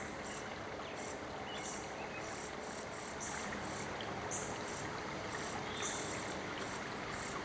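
Fledgling brown-headed cowbird begging for food from its song sparrow foster parent: a run of short, high calls, two or three a second and uneven in length, over a steady hiss.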